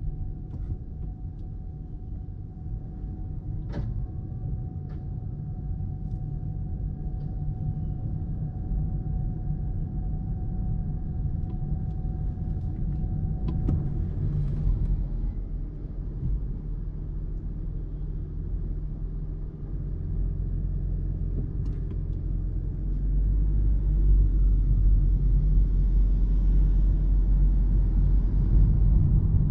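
2022 Toyota Prius AWD-e on the move: steady low road and tyre rumble, with a faint steady whine that stops about halfway through, and the rumble getting louder for the last few seconds.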